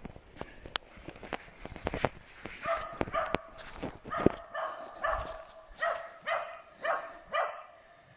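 Dog barking in a steady series, about two barks a second, starting about two and a half seconds in. Scattered knocks and rustling come before the barking.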